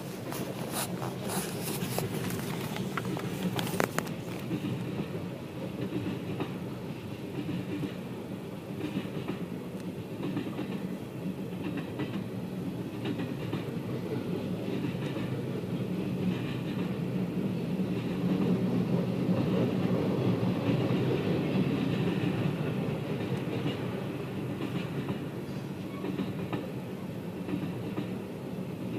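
Train passing, its wheels clattering over the rails in a steady rumble, with a run of sharp clicks and clanks in the first few seconds and a swell in loudness about two-thirds of the way through.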